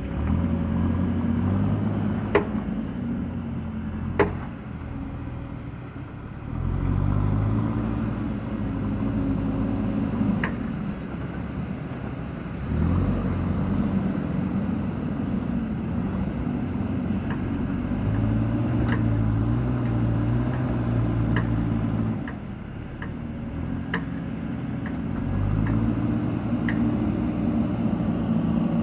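Diesel engine of a JCB backhoe loader at work, revving up under load and easing back again every few seconds. Two sharp knocks come a couple of seconds apart near the start, with lighter ticks later.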